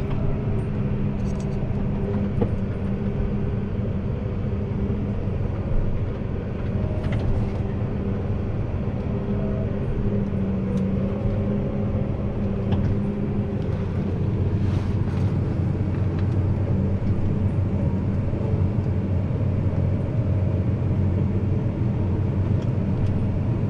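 Case IH 290 tractor's diesel engine running steadily, heard from inside the cab as a constant low drone, with a few faint knocks here and there.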